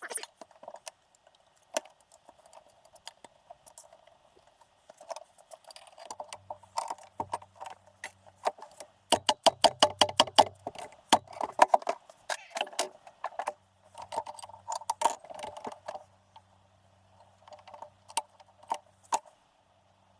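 Metal tools and engine parts clinking and rattling against each other in a run of sharp, uneven clicks, busiest around the middle, with a faint low hum coming and going.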